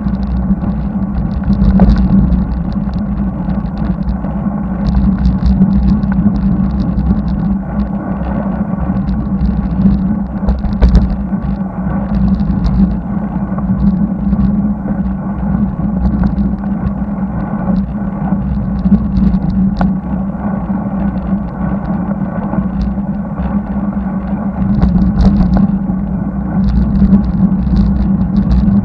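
Wind rumble and road noise on a bicycle-mounted camera during a road climb, a steady low hum with scattered light ticks.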